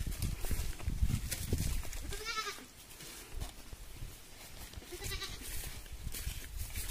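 An animal calling with a wavering cry about two seconds in, then a shorter, fainter call around five seconds, over footsteps and shuffling on grass.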